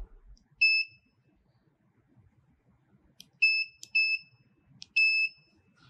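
AWC7824k laser-cutter touchscreen controller giving short high key-press beeps as its keys are tapped with a pen: one beep about a second in, then three more close together in the second half. Light clicks of the pen tip striking the screen come just before some of the beeps.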